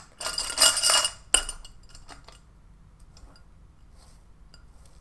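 A string of wire fairy lights being stuffed into a glass votive holder: crinkling wire and bulbs clinking against the glass, ending in a sharp click about a second and a half in, then only faint taps.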